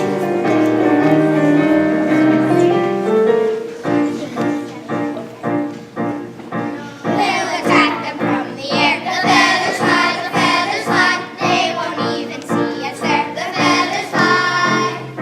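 Music: instrumental accompaniment with held chords, then a steady beat about four seconds in, and a group of children singing along from about seven seconds in.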